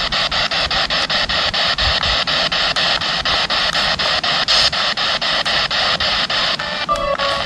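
SB7 spirit box radio scanning through stations in reverse: a steady rush of static chopped into quick, even pulses, about nine a second. A brief snatch of tones comes through near the end.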